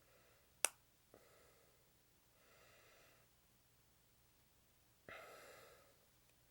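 Handling plastic model-kit parts: a sharp plastic click, then a softer one, and two brief scraping rasps, the second louder, as pieces are cut, cleaned up and fitted.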